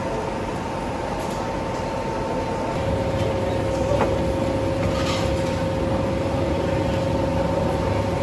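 Steady mechanical hum with two constant tones, joined about three seconds in by a lower, louder hum, and a few faint short hisses.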